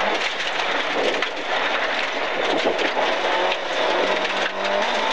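Rally car heard from inside the cabin at speed on a gravel road: the engine's revs rise and fall through the gears under a dense hiss and rumble of gravel and tyre noise.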